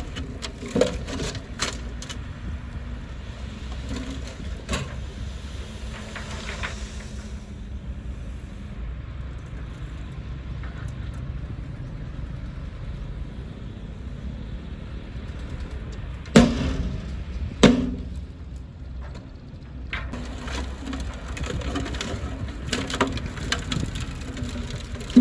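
Small bulldozer's diesel engine running steadily, with scattered sharp cracks and snaps and two louder knocks about a second apart around two-thirds of the way through.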